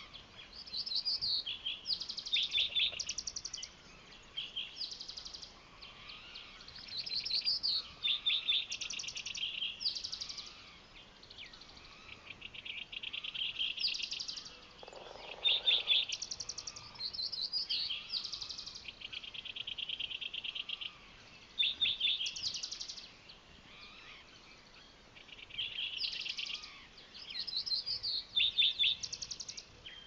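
Several songbirds singing in turn in a dawn chorus, a new short phrase every second or two. Most are rapid, buzzy trills, mixed with quicker warbled notes.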